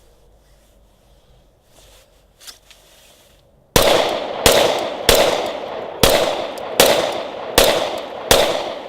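Glock 21 Gen 4 pistol firing .45 ACP: seven shots in a steady string, about one every three-quarters of a second, starting a little over three seconds in, after a few faint handling clicks.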